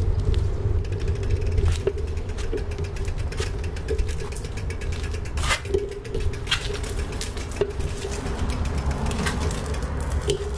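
Bicycle rolling slowly over concrete paving slabs, with scattered clicks and knocks from the bike and a steady low rumble.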